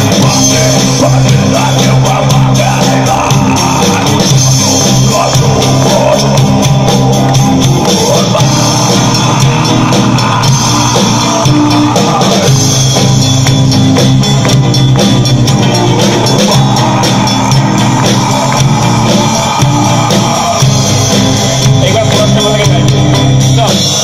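Live rock band playing: guitars and drum kit, with a voice singing over them.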